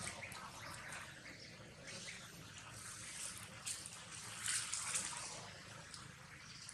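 Dry fallen leaves faintly crackling and rustling as a baby long-tailed macaque paws and steps about in the leaf litter. The crackles come irregularly, with a cluster of louder ones a little past halfway.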